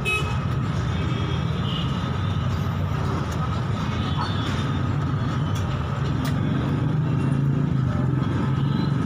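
Steady low engine rumble of roadside traffic, with a few faint, sparse clicks of a metal spatula on a flat iron griddle.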